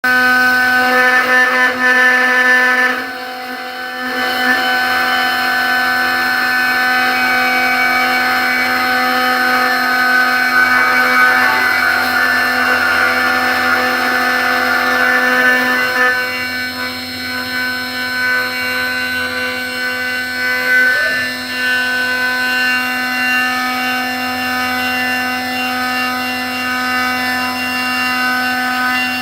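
6040 CNC router spindle running at a steady high pitch while a 2 mm two-flute end mill cuts 2 mm aluminium. The cutting noise swells and fades as the tool moves, with a brief drop about three seconds in.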